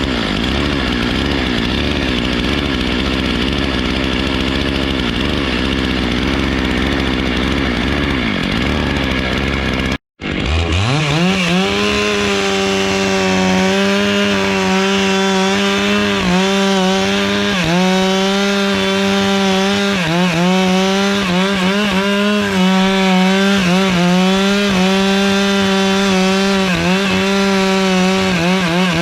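Stihl chainsaw running at high revs while cutting a palm trunk, its pitch dipping briefly every second or two as the engine loads in the cut. The sound breaks off for a moment about a third of the way in, then the saw comes back at a steadier, higher whine.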